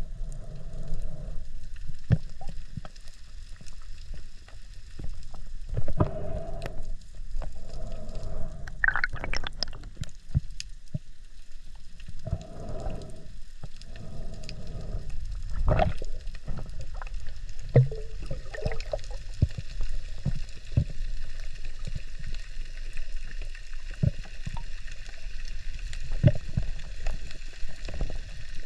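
Underwater sound picked up by a camera in its housing: muffled water movement with scattered clicks and knocks.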